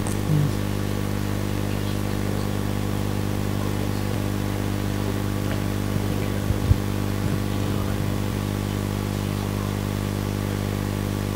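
Steady low electrical hum, unchanging throughout, with a few faint clicks about six to seven seconds in.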